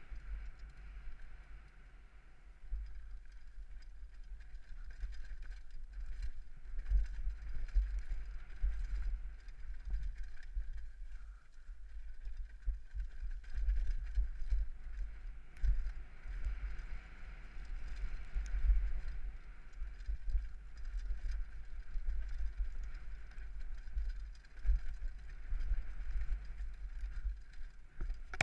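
Wind buffeting and rumbling on a helmet-mounted camera during a fast downhill mountain-bike run. It surges and dips constantly, with scattered knocks and rattles from the bike over rough dirt trail.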